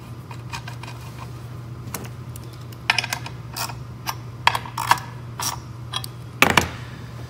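Small metal clicks and taps as the aluminum cover plate and castle nuts are handled and fitted on a Galaxy RS100 radiator edger's pad head, the sharpest tap about six and a half seconds in. A steady low hum runs underneath.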